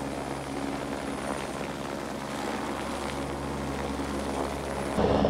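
Helicopter hovering overhead, its engine and rotor running steadily; the sound turns suddenly louder just before the end.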